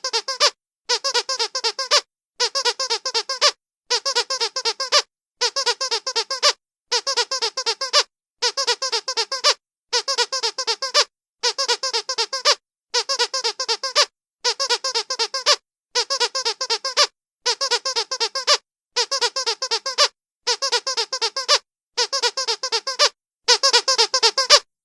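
A squeaky sound effect looped over and over: the same squeaky burst, about a second long with a fast flutter inside, repeats about every second and a half, some sixteen times.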